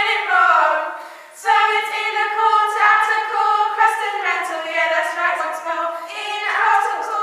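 Three girls' voices singing and chanting a rap together, unaccompanied, in long held notes, with a short break about a second in.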